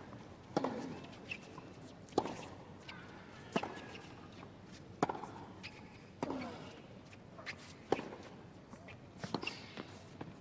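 Tennis ball struck back and forth by rackets in a rally on a hard court: a sharp pock about every second and a half.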